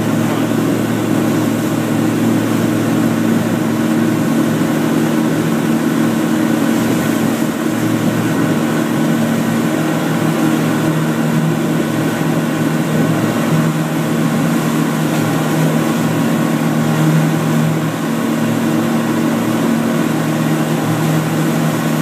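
2013 Sanger V237 wake boat's inboard engine running at a steady hum at surf-wave speed, mixed with the rush of the wake behind the boat.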